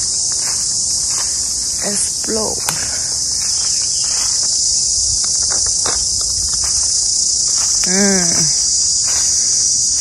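A dense chorus of insects shrilling steadily at a high pitch, without a break.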